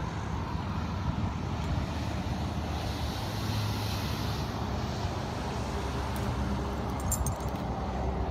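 Steady low rumbling outdoor noise, with a few faint clicks about seven seconds in.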